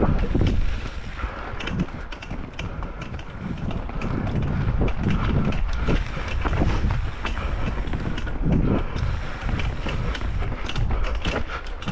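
Pole Stamina 180 long-travel full-suspension mountain bike ridden down a dirt trail: tyres rolling over rough ground, with frequent clicks, knocks and rattles from the chain and bike. Wind rumbles on the microphone.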